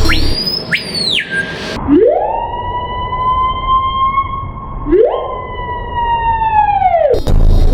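Siren wailing: a short high whistling tone, then a wail that rises quickly to a steady high pitch and holds. Near the middle it dips and climbs back up, then slides down and stops.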